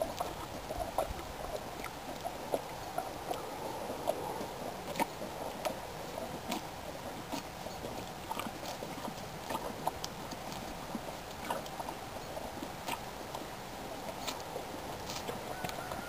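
A donkey chewing, with irregular short crunchy clicks about every second or so.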